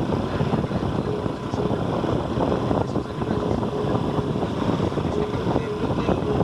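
Motorcycle engine running steadily under way, mixed with wind buffeting the microphone.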